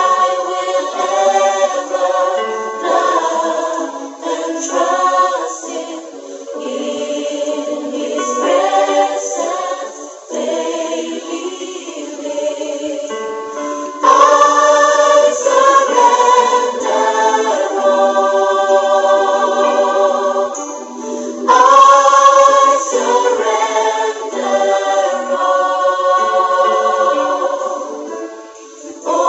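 Church choir singing a sacred song in full voices, phrase after phrase, swelling louder about halfway through and again about three quarters of the way through.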